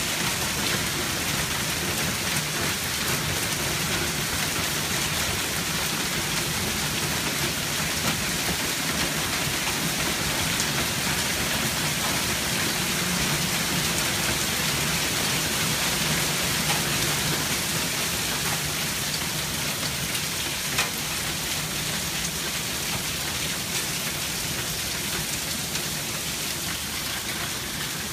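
Heavy rain pouring down steadily in a dense, even hiss, with a few sharp taps here and there.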